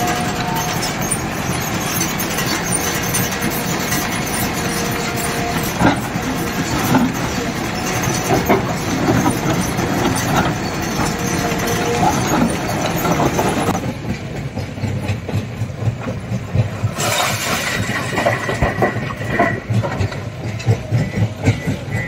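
JCB 3DX backhoe loader's diesel engine running under load with a continuous heavy machinery rumble and clatter, with a faint steady whine. About fourteen seconds in the sound changes: the high hiss drops away, leaving the engine and irregular knocks.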